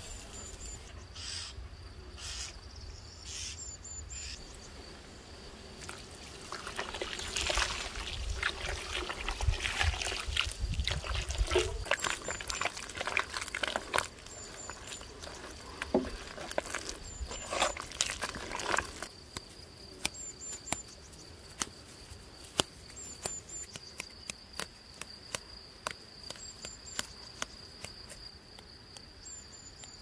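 Wet clay mud squelching and slopping as bare hands knead it in a tray, through the middle of the stretch. Short bird chirps repeat throughout, and in the later part a steady high insect trill sounds with scattered light clicks.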